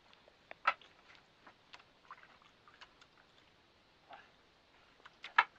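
Scattered clicks and knocks from handling a gaffed yellow-spotted trevally being lifted aboard a boat. The sharpest knock comes just under a second in, and a quick cluster of knocks comes near the end.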